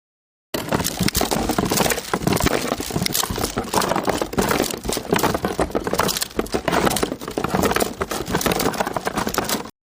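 A continuous, dense crinkling and crackling made of many small clicks close together, like a Foley effect of something being crumpled or crushed. It starts abruptly about half a second in and cuts off just before the end.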